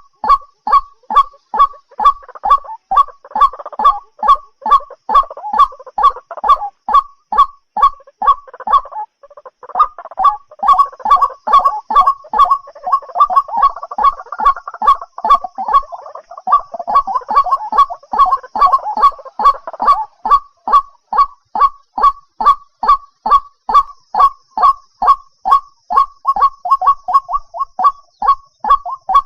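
White-breasted waterhen calling: a steady run of loud, short repeated notes at about three a second, with stretches of faster, overlapping chatter in the first two-thirds.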